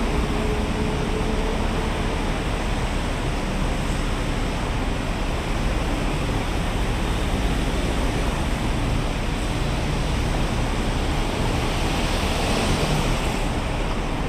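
Steady road traffic on a multi-lane highway: a continuous wash of tyre and engine noise from cars and buses passing below, swelling slightly near the end as vehicles pass close.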